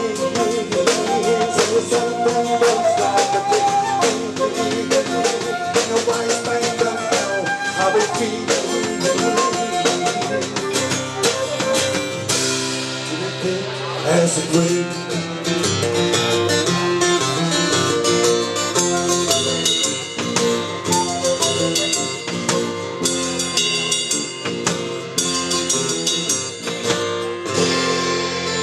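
Live rock band playing, with drum kit and guitars; busy drumming gives way to held chords about twelve seconds in.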